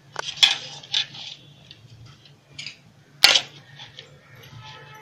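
Soaked tapioca pearls being mixed with salt in a metal bowl, by hand and with a metal spoon: soft rustling scrapes and scattered clicks of the spoon on the bowl, with one sharp click a little over three seconds in.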